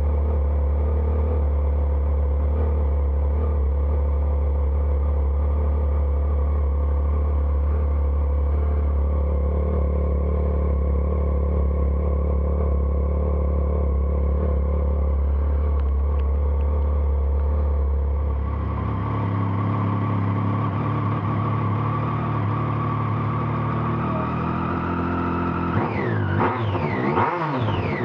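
2010 Triumph Street Triple R's 675 cc inline three-cylinder engine idling steadily through its stock exhaust. About two-thirds through, the exhaust note changes, and near the end the throttle is blipped, the revs rising and falling several times.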